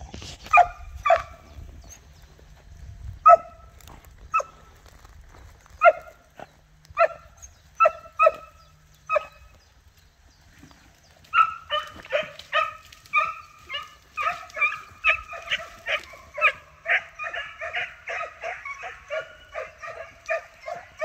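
Hunting scent hounds giving tongue on a hare's trail. At first single barks come about a second apart; from about eleven seconds in they turn into a rapid, continuous chorus of yelping barks.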